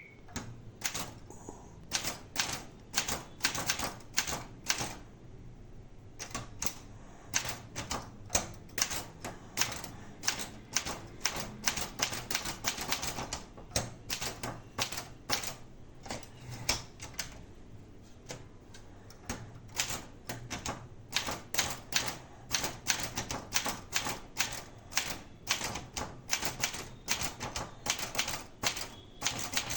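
Marathon 880 DLX typewriter being typed on: a fast, uneven run of sharp key strikes, several a second, with brief pauses about five seconds in and again a little past halfway.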